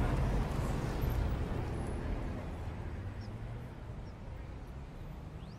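Low rumbling background noise that fades out gradually.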